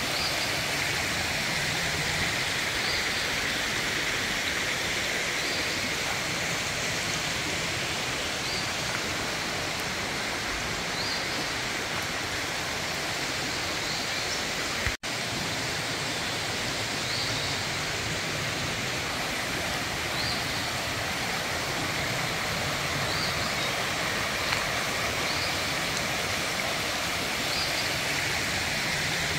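Shallow rocky creek rushing steadily over stones. The sound cuts out for an instant about halfway.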